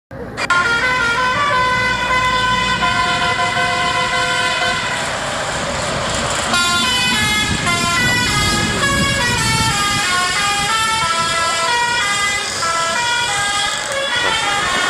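Bus 'telolet basuri' multi-trumpet air horn playing a melody. It holds a chord of several notes for about five seconds, a brief rush of noise follows, then it plays a tune of quick stepping notes.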